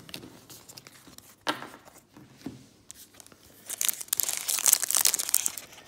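A foil trading-card pack wrapper being torn open and crinkled, starting about two-thirds of the way in after a few soft handling clicks.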